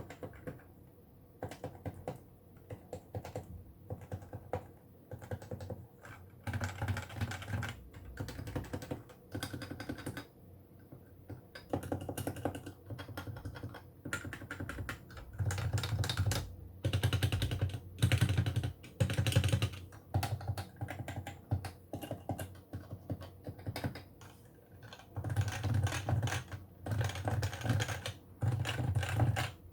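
Typing on an HHKB Pro 2 Topre keyboard: fast runs of keystrokes in bursts of a few seconds, broken by short pauses, each press a muted click with a low thud. The sound is a little distorted by background-noise removal.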